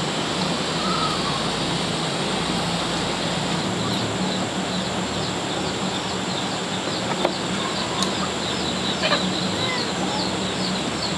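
Outdoor ambience: a steady hiss with birds chirping in quick, repeated high notes, two or three a second, from about three seconds in, and a couple of faint drawn-out calls.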